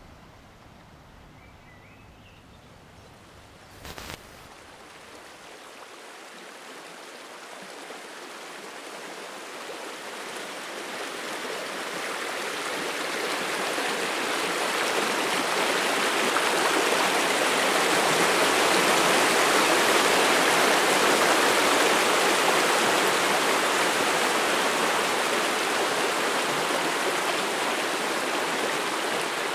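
Small rocky stream splashing and rushing over stones in a binaural recording, growing steadily louder from a few seconds in to a peak about two-thirds through, then easing slightly. Before the water comes up there is quiet forest ambience with a short click about four seconds in.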